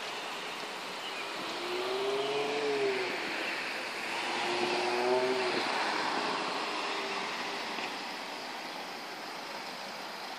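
Cars driving past on a city street: a steady wash of tyre and engine noise, louder as vehicles go by between about two and six seconds in.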